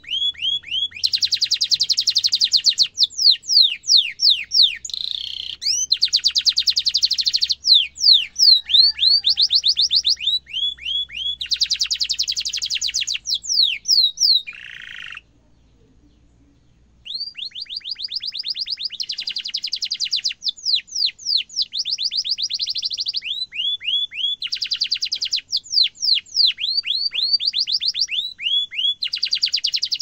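Domestic canary singing: long fast rolling trills alternating with runs of quick downward-sweeping notes. The song breaks off for about two seconds midway, then resumes.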